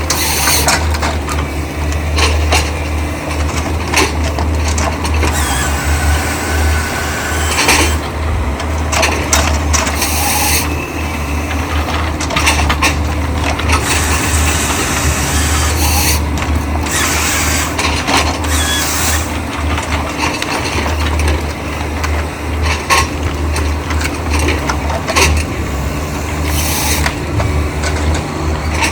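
Excavator engine running steadily under load, with repeated noisy bursts of about a second each from the machine's work.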